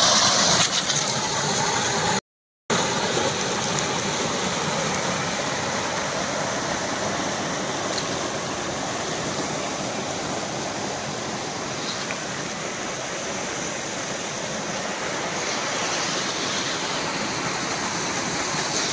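Water rushing and splashing over the rocks of a small waterfall: a steady rushing noise that briefly cuts out about two seconds in.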